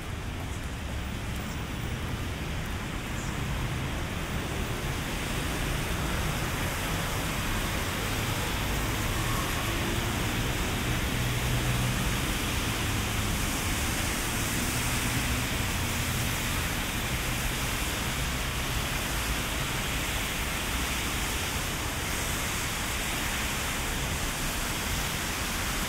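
Heavy rain falling in a steady, even hiss, swelling a little over the first dozen seconds.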